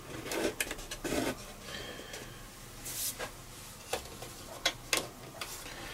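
Light handling noises on wood: soft rubbing with scattered small clicks and knocks as an LED strip is pressed along a pine frame's edge and handled with spring clamps.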